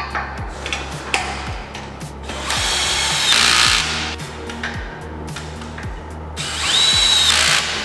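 A power driver running bolts down into the steel roof-rack brackets, in two bursts of about a second and a half each with a whine that rises and falls: one about two and a half seconds in, another near the end.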